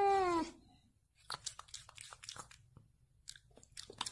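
A cat's long meow, falling in pitch, ends about half a second in. After a short pause come scattered faint crunching clicks.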